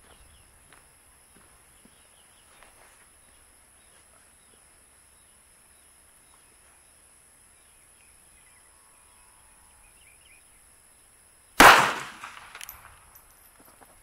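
A single .380 ACP pistol shot from a Ruger LCP subcompact with a 2-inch barrel, fired into ballistic gel, about twelve seconds in: one sharp report that trails off over about a second.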